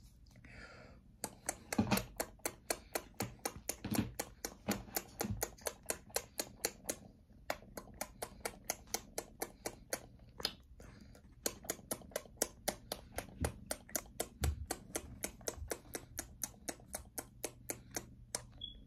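Rapid, evenly spaced lip-smacking kiss sounds, about four to five a second, made by a man at a kitten, broken by two short pauses, with a few soft thumps of the kitten shifting on his shoulder.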